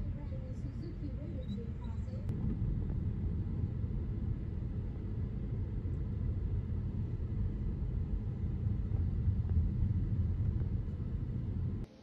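Steady low rumble of a taxi's engine and tyres heard inside the cabin while it drives, cutting off abruptly near the end.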